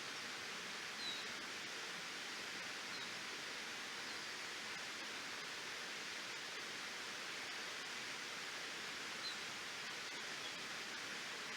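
Waterfall rushing steadily as an even hiss of falling water. Two short high chirps stand out briefly, about a second in and again near the end.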